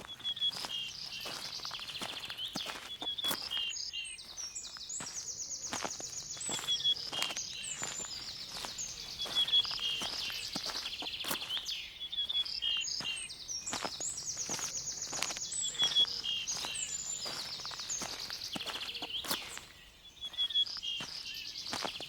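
Several songbirds chirping and singing fast trills over and over, with a steady run of footsteps.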